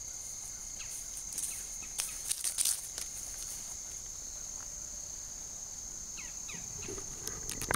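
Crickets chirring in a steady, high, even drone. A few short rustles and clicks break in about two seconds in and again near the end.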